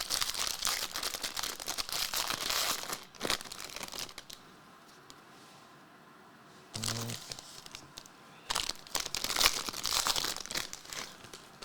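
Trading card pack wrappers crinkling and tearing as packs are handled and ripped open, in two bouts: one for the first three seconds and another after a pause of several seconds.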